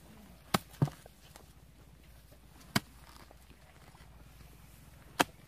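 Four sharp knocks of a metal digging bar being driven into wet, muddy soil: two close together about half a second in, one in the middle and one near the end.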